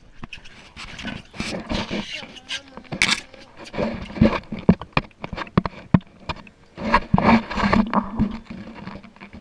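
Camera handling noise: irregular knocks, clicks and rustling close to the microphone as the camera is moved about.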